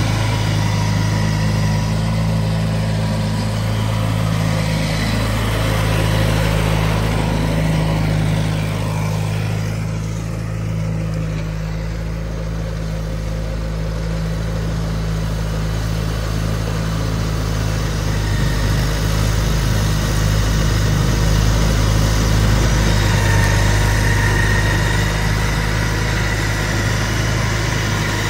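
John Deere 318 garden tractor's air-cooled Onan two-cylinder engine running steadily under load, driving a front-mounted snowblower through heavy wet snow. The sound dips a little for a few seconds about a third of the way in.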